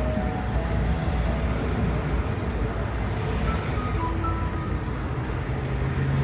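Steady highway traffic noise: a continuous wash of tyre and engine sound from passing cars, with a few faint brief tones over it.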